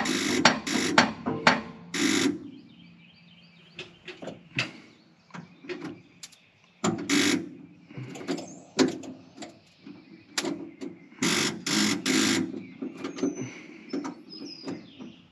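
Bouts of sharp metal knocks, two or three a second, with scattered smaller clicks between them: tapping on the old Ford F900 fire truck's starter to get it to engage. The starter still doesn't turn the engine over, which is put down to a solenoid or something having gone bad.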